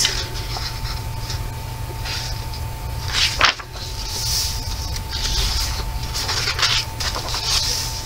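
Pages of a paperback coloring book being turned and smoothed flat by hand: a string of short paper rustles and slides, the sharpest about three and a half seconds in.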